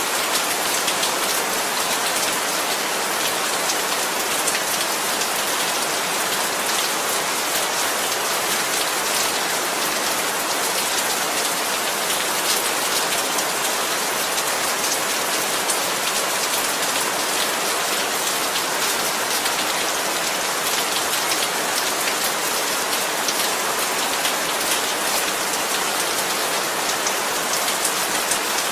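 Heavy rain falling steadily and hard, a dense hiss of drops hitting surfaces.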